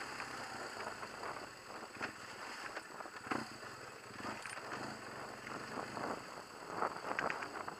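BMW HP2 Enduro's boxer-twin engine running at low revs on a rocky dirt track, with scattered knocks and rattles as the bike rolls over stones.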